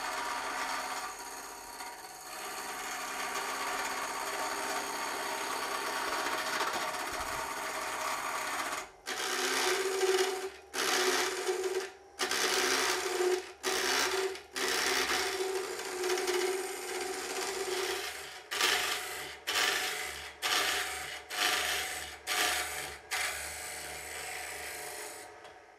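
Wood lathe spinning a wooden blank while a TurnMaster tool's tungsten carbide square cutter cuts it down to round, making a continuous scraping cut as shavings come off. From about nine seconds in, the cut comes in short passes of about a second each, with brief breaks between them.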